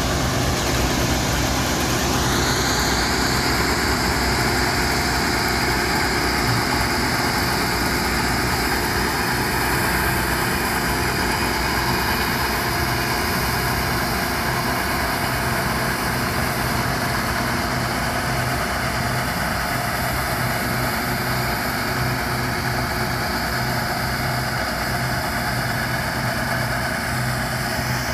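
Bizon Z056 combine harvester at work: its six-cylinder diesel engine and threshing machinery make a steady drone, with a high whine that rises about two seconds in and then holds.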